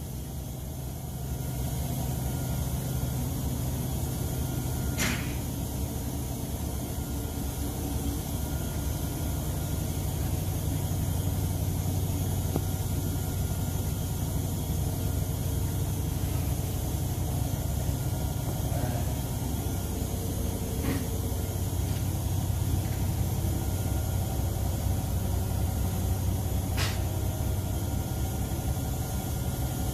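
A steady low mechanical hum with three brief sharp clicks spread through it.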